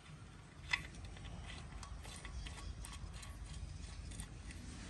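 Faint, irregular light clicks and ticks of a -10 AN oil-drain fitting being screwed by hand into the sump of a Ford Barra engine, with one sharper click near the start, over a low steady rumble.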